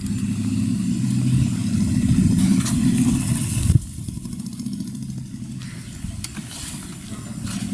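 A motor vehicle engine running close by, its steady low hum loudest in the first half, then cut off abruptly about four seconds in and followed by a fainter low rumble.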